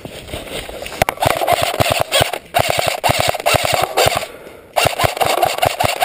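Airsoft rifle firing full-auto in long, rapid bursts close by, three of them, the first starting about a second in, with short breaks between.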